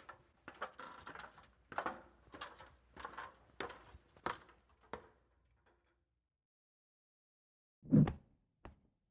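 A string of about eight sharp knocks or impacts in quick uneven succession, then a pause and one heavy, low thump near the end.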